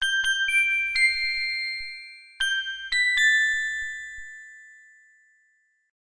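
Bell-like chime notes struck in two quick runs, about four notes and then three more, each ringing on and fading away.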